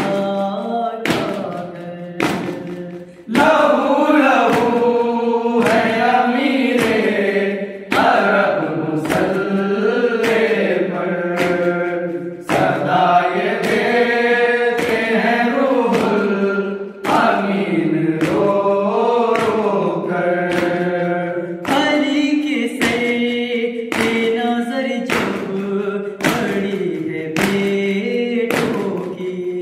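A group of male voices chants a nauha, a Shia mourning lament, in unison with no instruments. Sharp hand slaps of matam keep time about once a second.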